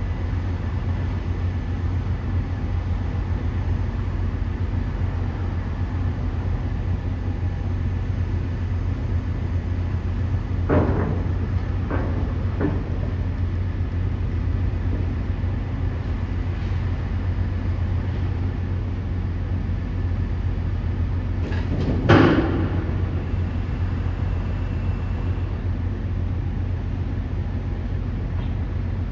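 Trucks and a ferry at a berth: a steady low rumble, with three clanks about eleven to thirteen seconds in and a louder bang about twenty-two seconds in.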